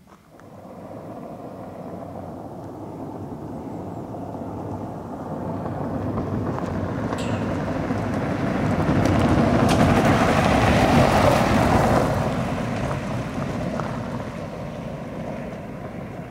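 An SUV driving past on a gravel road. Its tyre and engine noise grows over about ten seconds, is loudest as it passes, then fades as it drives away. A few sharp clicks of stones are heard.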